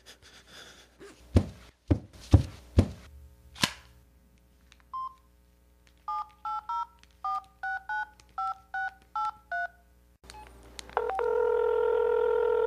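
A touch-tone telephone being dialled: a few clicks and knocks of handling, then about a dozen quick dual-tone keypad beeps. After a click, a steady phone line tone sounds near the end.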